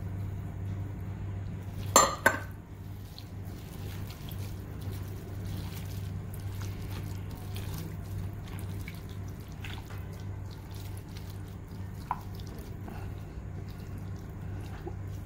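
Wet squishing of a hand mixing squid pieces with ground coconut masala and tamarind water in a glass bowl. There are a couple of sharp clinks about two seconds in, and a steady low hum runs underneath.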